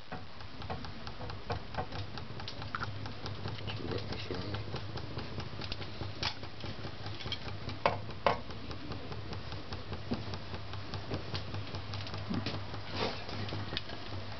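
Homemade Adams-type pulse motor-generator (6 magnets, 12 coils) running on a 12 V battery: a steady low hum with fast, faint ticking, and a few sharper clicks around the middle.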